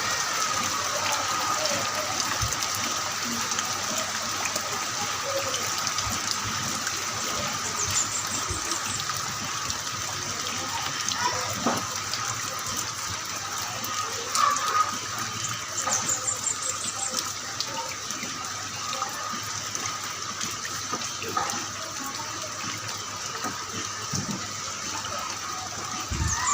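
Heavy rain falling steadily, an even hiss of rain with no let-up.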